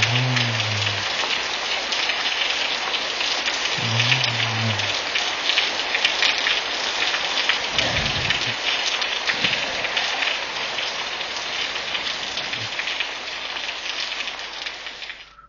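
Heavy rain falling, a dense, steady patter of drops. There are two short low tones near the start and a brief low rumble about halfway through. The rain cuts off suddenly just before the end.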